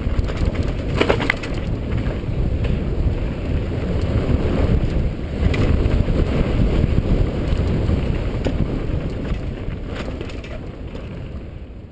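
Wind rushing over the microphone of a mountain bike riding fast down dirt singletrack, with tyre and trail noise and a few sharp knocks as the bike hits bumps. It fades out near the end.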